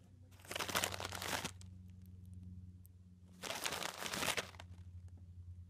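A chipmunk rummaging inside an empty M&M's plastic snack bag, the wrapper crinkling in two bursts of about a second each, one near the start and one past the middle.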